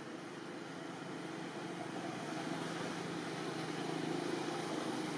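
Steady low hum and hiss of outdoor background noise, slowly growing a little louder.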